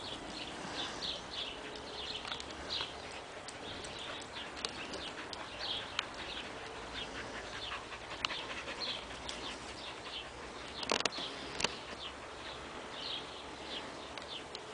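Small birds chirping in quick, repeated high notes throughout, with border collies panting close by and two sharp clicks about eleven seconds in.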